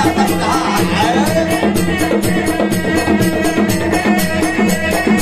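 Serunai, the Malay double-reed shawm, playing a wavering, ornamented melody over a traditional ensemble of hand drums and percussion that keep a quick, steady beat of about four or five strokes a second.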